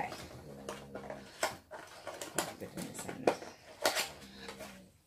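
French bulldog's snoring breaths, a steady low drone heard twice, early on and again near the end, over cardboard and packaging rustling and clicking as a calendar box is opened.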